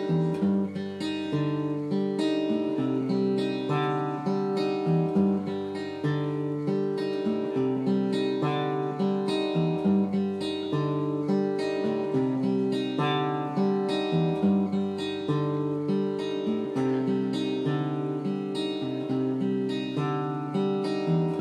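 Acoustic guitar played in a steady, regular rhythm: bass notes alternate under strummed chords.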